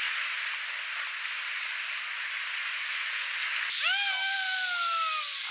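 Rushing whitewater of river rapids, a steady hiss. Nearly four seconds in, the sound cuts, and a single long call slides slowly down in pitch for about a second and a half.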